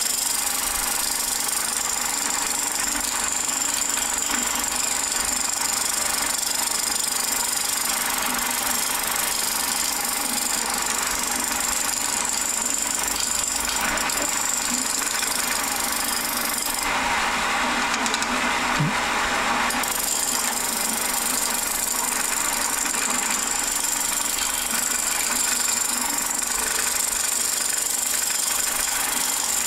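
Wood lathe running while a carbide-insert tool scrapes a spinning glued-up stacked bowl blank to re-round it, a steady cutting hiss over the lathe's hum. For about three seconds past the middle the cut's sound turns lower.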